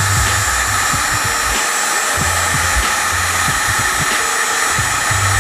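Electric heat gun running, blowing hot air in a steady whooshing hiss, with an uneven low rumble underneath.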